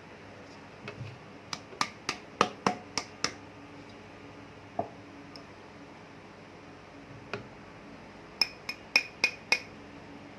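Two quick runs of sharp clinks and taps, hard kitchenware knocking against a food processor bowl while ingredients are tipped in, with a couple of single taps between them.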